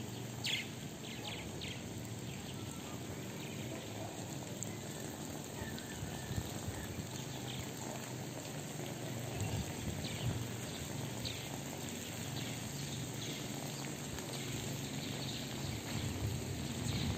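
Outdoor evening ambience: a steady low hum and hiss with scattered short, faint high chirps, most of them in the first few seconds.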